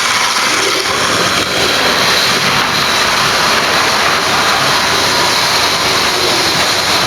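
Model railway locomotive running along the track close to the microphone: a steady whirring of motor and wheels with a faint high whine.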